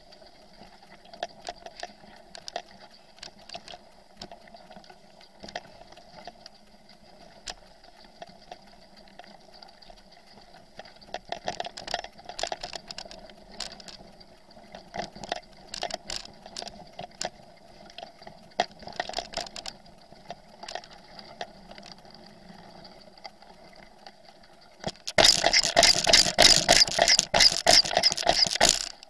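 Bicycle rattling over a rough, rutted forest track, heard through a handlebar-mounted camera: scattered clicks and knocks, then a loud, dense clatter for about four seconds near the end as the ground turns stony.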